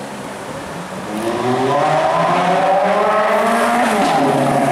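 Ferrari F430's V8 engine accelerating past, its revs climbing for about three seconds before the pitch drops sharply as it goes by.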